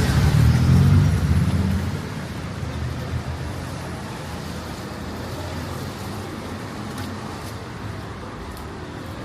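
A motor vehicle passing close by, loudest in the first two seconds, then fading into steady city traffic noise.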